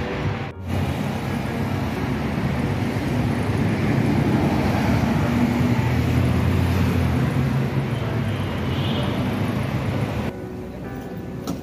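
Street traffic: car and bus engines running and passing, with a low engine drone loudest in the middle. The sound cuts out briefly about half a second in and drops in level near the end.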